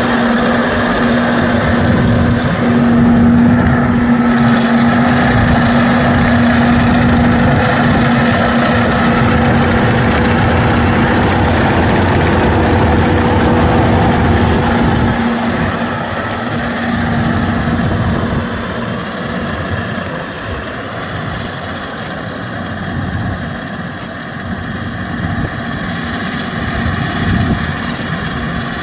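Kukje KC100 six-row combine harvester running steadily in a rice field, its engine and threshing machinery making a continuous loud hum. A steady whine in the sound fades out a little past halfway, and the overall sound eases slightly.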